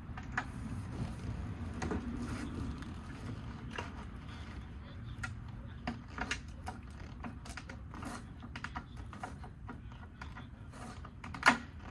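Scattered light clicks and rattles of riding-boot buckles being fastened, with one sharper snap near the end.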